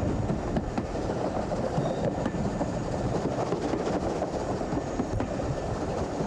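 A train running on the line, a steady rumble with faint clicks of wheels on the rails.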